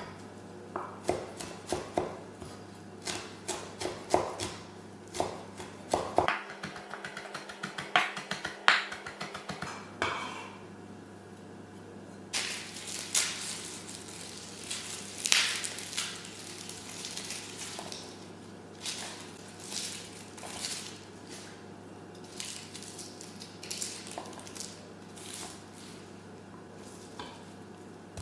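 Kitchen food preparation: irregular knocks and clinks of utensils and dishes, with louder clusters in the first third and again near the middle, over a low steady hum.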